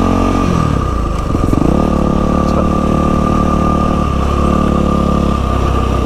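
Yamaha WR450F single-cylinder four-stroke dirt bike engine running at low speed while riding, the revs dropping and picking up again about a second in, then holding steady.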